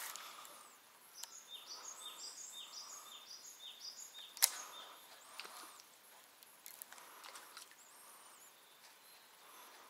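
Songbird singing a quick run of short, repeated falling high notes for about three seconds, with a few thin high calls later. A single sharp click about four and a half seconds in is the loudest sound.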